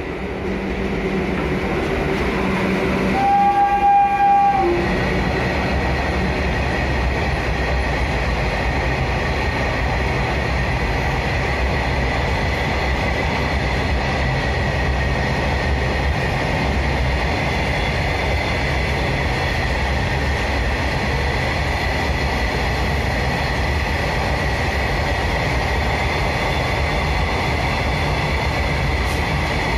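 Horn of a WAG7 electric freight locomotive, one blast of about a second and a half a few seconds in. It is followed by the steady rumble and wheel noise of a long rake of BOXN open wagons rolling past, with a thin steady whine over it.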